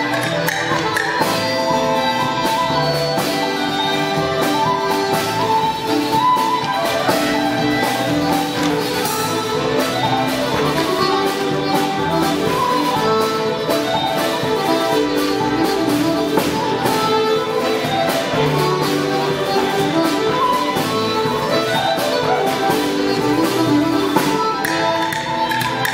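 Irish ceili band playing live dance music, the fiddle to the fore, with many sharp taps running through it.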